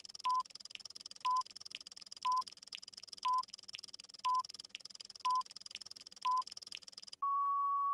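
Electronic countdown timer beeping, one short mid-pitched beep about every second with faint ticks in between. About seven seconds in, it gives way to one long steady beep as the countdown runs out.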